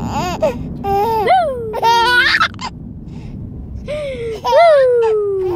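A five-month-old baby laughing hard in bursts of rapid, high squealing giggles, with a quieter lull in the middle and a long high squeal falling in pitch near the end. Low road rumble of the moving car runs underneath.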